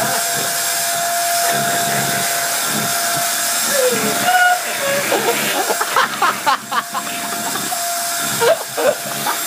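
Hoover vacuum cleaner running with a steady hissing rush and a constant whine. Short high-pitched voice-like sounds cut in over it about halfway through and again near the end.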